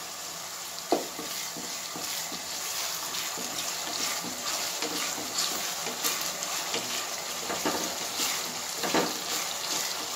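Chopped onions and freshly added curry leaves sizzling in hot oil in a pot, stirred with a wooden spatula. The spatula knocks against the pan a few times, most clearly about a second in and near the end.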